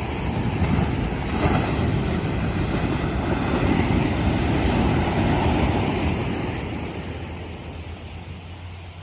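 Ocean surf breaking and washing up the beach: a loud, rushing wash that swells over the first few seconds, then fades away over the last few as the wave runs out.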